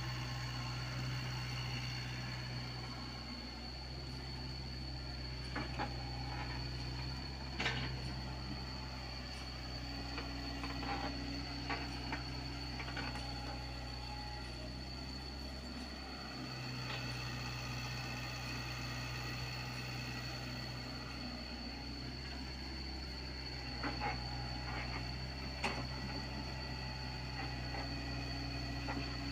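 Komatsu PC75UU mini excavator's diesel engine running steadily under working load, its note dipping and rising as the arm and bucket move soil. Several short sharp knocks are scattered through, and a steady high-pitched tone runs underneath.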